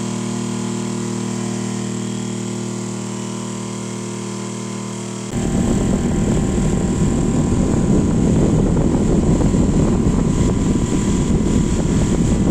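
Homemade table fan driven by a 775 DC motor, running with a steady electric hum. About five seconds in, the hum is abruptly swamped by a much louder, rough rushing noise that continues to the end.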